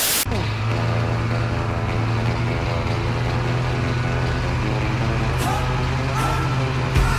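A brief burst of TV static at the start, then a snowmobile engine running at a steady speed as the machine travels across snow.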